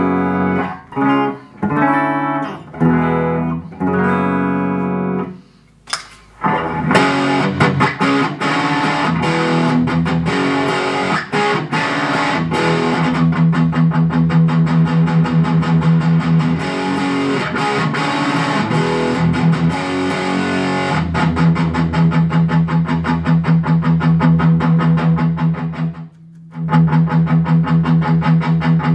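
Electric guitar played through a Boss BD-2 Blues Driver overdrive pedal: a few separate chords ringing out with short gaps, then, after a brief pause about six seconds in, a continuous fast picked riff with a short break near the end.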